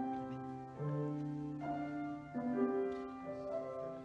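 Slow keyboard music: held chords that change about once a second.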